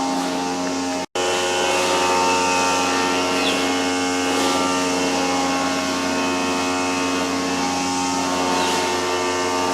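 A steady mechanical drone of many held tones, like a running engine or motor. It cuts out completely for an instant about a second in, then carries on unchanged.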